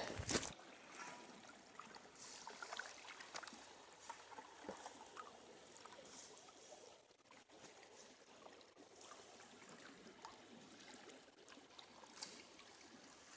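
Faint water sloshing and trickling with small irregular splashes and clicks, as a gold pan of creek gravel is swirled and washed down in the water during a test pan.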